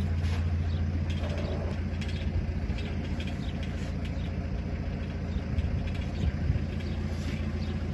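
An engine idling steadily nearby, a low even hum, with a light knock about six seconds in.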